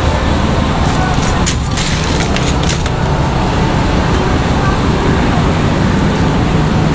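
Steady low rumble of street traffic, with a few light clicks and knocks between about one and a half and three seconds in.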